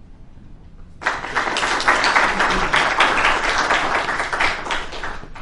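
Audience applauding, starting about a second in after a short pause and dying away near the end.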